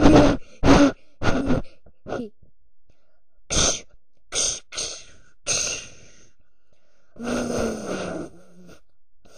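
A person making wordless vocal noises: three short grunts in the first second and a half, then several breathy gasps, and a longer groan that falls in pitch near the end.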